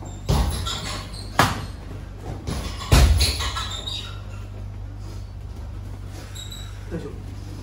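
Gloved sparring strikes landing, a few sharp slaps with the loudest about three seconds in, and bare feet squeaking and shuffling on a vinyl ring mat, over a steady low hum.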